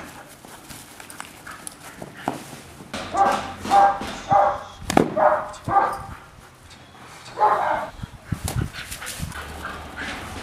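Black-and-tan shepherd-type guard dog barking aggressively at a stranger during guard-dog aggression training: a quick run of about six barks about three seconds in, then one more bark a couple of seconds later.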